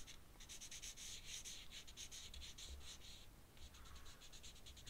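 Ink drawing strokes on paper: a quick run of faint, short, scratchy strokes as shading is worked in around a drawn eye, with a brief pause a little past three seconds in.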